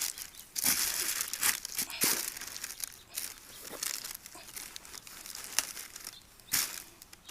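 Absorbent filling of a disposable oil drain box crinkling and rustling as it is fluffed up by hand, in irregular crackly bursts.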